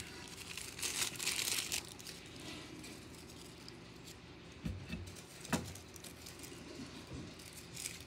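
Wrapper of a Score football card pack crinkling as it is torn open and the cards pulled out, for about the first two seconds. After that, a few light taps as the stack of cards is handled.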